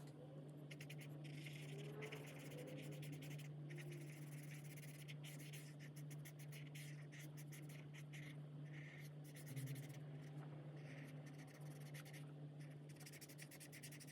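Chen Rui alcohol marker nibs scratching over coloring-book paper in runs of quick back-and-forth coloring strokes, faint, over a steady low hum.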